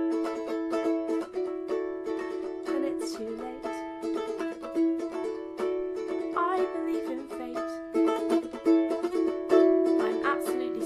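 Background music: a ukulele-led song in a passage without vocals, with plucked chords and notes struck several times a second.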